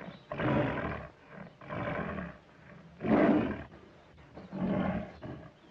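A lion roaring in four loud bursts, each under a second long, with short pauses between them.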